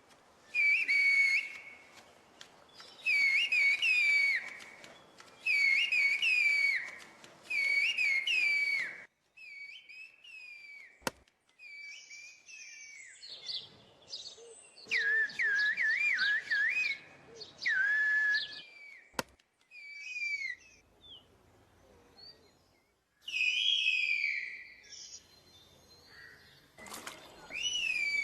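Turkish whistled language (kuş dili, 'bird language'): a person whistling a series of short phrases whose pitch swoops up and down, each about a second long with pauses between them. Two sharp clicks fall in the middle stretch.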